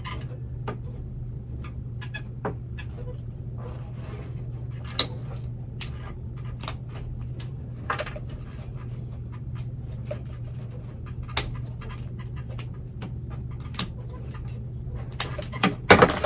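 Pruning shears snipping through an orchid's basket pot and old roots: short sharp snips and squeaks every second or two, with a cluster of louder cuts near the end, over a steady low hum.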